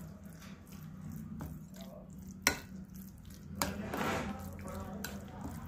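A spoon stirring a thick, wet flattened-rice batter in a glass bowl, with a few sharp clinks of the spoon against the bowl.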